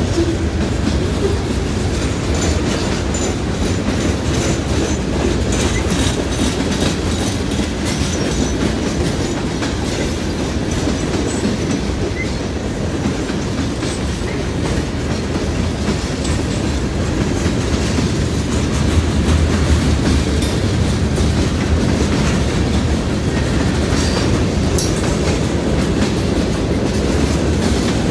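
Freight cars rolling past at a grade crossing: a steady rumble with wheels clicking over the rail joints.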